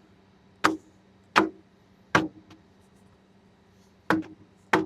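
Five sharp knocks at uneven intervals over a faint steady hum, from the old, clogged tractor cabin air filter being handled.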